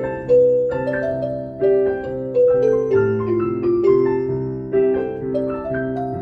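Instrumental music: a keyboard plays a slow melody over held chords and a sustained bass line.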